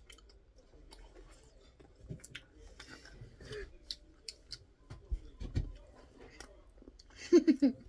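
Soft, scattered clicks and scraping as the shape is picked out of a dalgona-style chocolate candy, with a few dull thumps about two-thirds of the way through and a brief loud voiced sound near the end.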